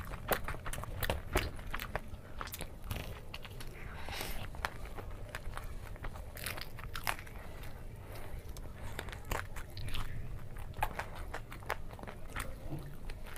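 Crunchy biting and chewing of deep-fried momos, with many quick crackles of the crisp crust between the teeth and as pieces are torn apart.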